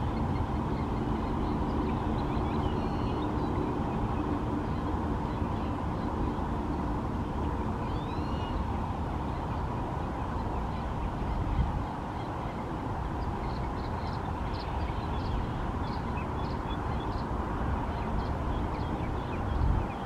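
A steady low rumble of outdoor ambience with birds calling faintly over it. There are a couple of swooping calls in the first half and a quick run of short, high chirps a little past the middle.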